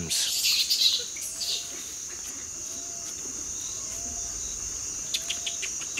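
Steady high-pitched insect drone, with a faint short call repeating about every second and a bit. There is some brief rustling in the first second or so.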